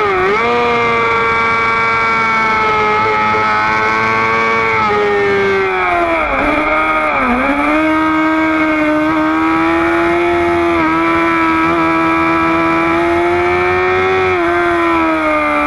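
High-revving sport motorcycle engine at speed on track, heard from on board with wind rush. The pitch falls in steps with short blips between about five and seven and a half seconds as the rider brakes and downshifts. It then holds nearly steady, slowly rising, through a long corner, and drops again near the end.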